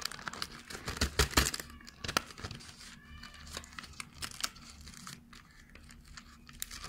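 Crinkling and rustling of a thin white card fidget spinner box being handled and its flap folded, with a cluster of sharp crackles about a second in.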